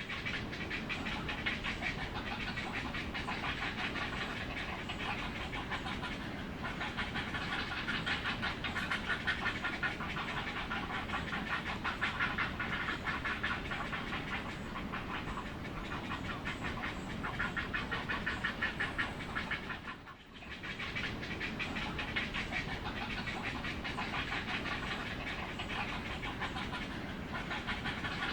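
A heron calling: a fast, continuous rattling chatter of rapid pulses, with a brief break about twenty seconds in.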